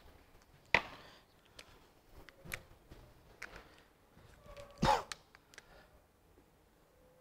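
Handling noises at a whiteboard: a few sharp clicks and knocks of markers and a handheld object. The loudest come about a second in and again near five seconds in.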